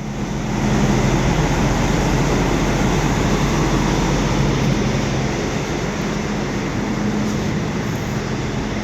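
2005 Peterbilt dump truck's diesel engine idling steadily, still cold after a spring cold start following a winter of sitting.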